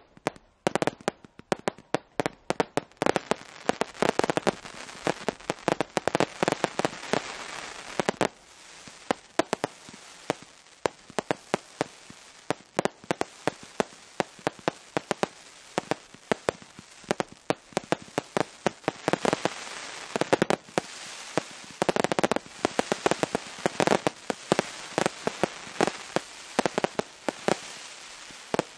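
Aerial fireworks display: a continuous barrage of sharp pops and bangs from launches and bursts over a dense crackle of stars, swelling louder around four to eight seconds in and again from about nineteen seconds.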